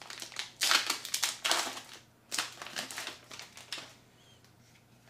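Foil wrapper of a Pokémon TCG Evolutions booster pack crinkling loudly as it is pulled open, in two long stretches that stop about four seconds in.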